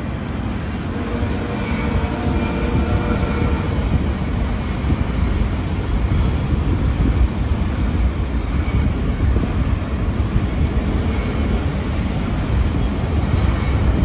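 Union Pacific manifest freight train, led by GE diesel locomotives, rumbling steadily past. The tail of its horn fades out in the first few seconds.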